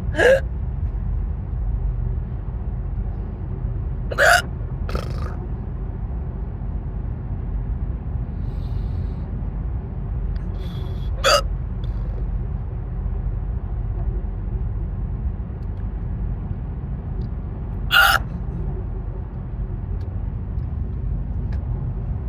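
A woman hiccuping five times at irregular intervals, short sharp hiccups, two of them close together about four seconds in, over the steady low road rumble inside a moving car.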